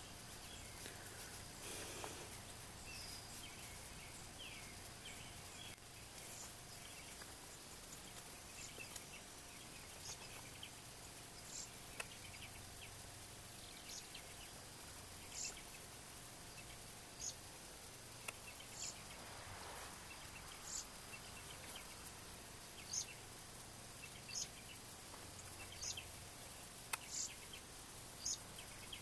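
Quiet garden ambience: a small bird repeats a short high chirp every second or two, with other faint bird calls early on, over a faint steady hum.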